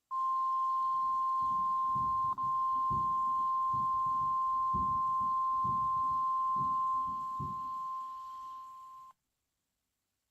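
NOAA Weather Radio 1050 Hz warning alarm tone: one steady high tone held for about nine seconds, with a momentary dropout about two seconds in, growing weaker near the end before it cuts off. It is the attention signal that switches on special weather-alert receivers.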